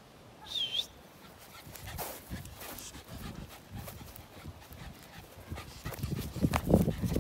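Puppy panting as it runs up to the microphone, growing louder toward the end. A brief high chirp sounds about half a second in.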